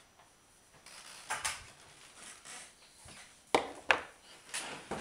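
Needle-nose pliers being handled and set down on a wooden desktop: a soft rustle about a second in, then two sharp clacks about three and a half seconds in, with smaller clicks after.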